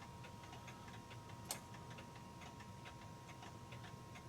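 Mechanical clocks ticking steadily, several ticks a second, with one sharper click about a second and a half in. A faint steady whine runs underneath.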